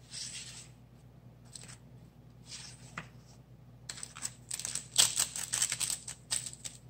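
Paper and craft materials rustling and crinkling as they are handled on a table: a few short swishes, then a busier run of crinkles and light taps from about four seconds in.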